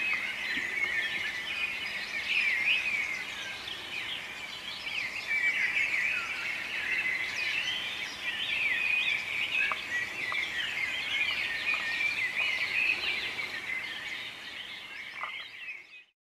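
Birds chirping and twittering in a dense, continuous chorus of short, quick high calls, fading out at the very end.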